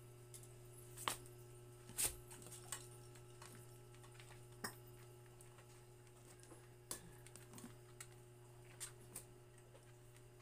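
Scattered light clicks and knocks at an irregular pace, the loudest about one and two seconds in, from plastic toys being handled in a wire toy rack, over a steady low hum.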